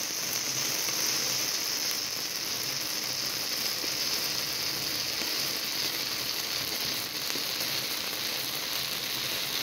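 Fountain-style sparkler birthday candle burning, hissing steadily as it sprays sparks.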